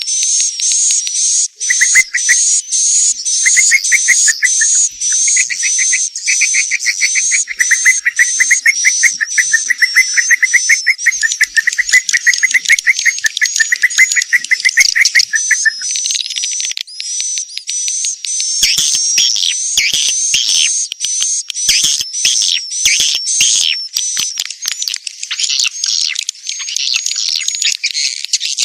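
Edible-nest swiftlet calls played as a swiftlet-house lure sound: high chirps repeated about three times a second. A fast, lower rattling trill runs under them until about halfway, after which the chirps come denser and overlapping.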